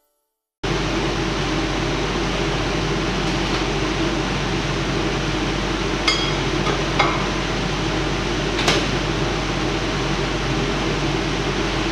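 Microwave oven running with a steady hum and whir, with three sharp snaps about six, seven and nine seconds in, as the contents heat up in a microwave-fire experiment.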